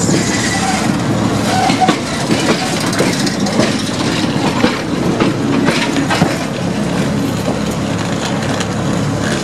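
A tram passing close by, its wheels clunking and rattling over worn, uneven track: a continuous rumble broken by many repeated knocks. The clunks are the sign of badly worn track with poorly joined rail sections.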